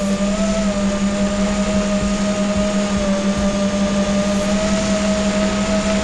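Small quadcopter drone's motors whining in flight: one steady tone that wavers slightly in pitch, over a constant low buzz.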